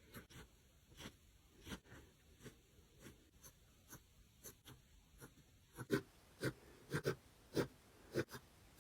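Pencil scratching across paper in short, separate strokes at an uneven pace, louder and quicker from about six seconds in.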